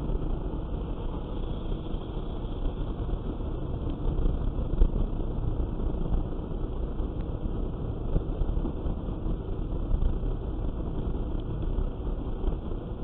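Steady road and engine noise of a car cruising at about 85 km/h, heard from inside the car through a dashcam's microphone, with one brief knock about five seconds in.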